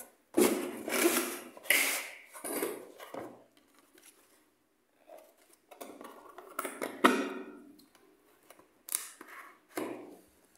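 Cardboard box and its foam insert being handled and closed on a wooden table: rubbing, scraping and knocks in irregular bursts, with a quiet pause between about three and a half and five seconds in.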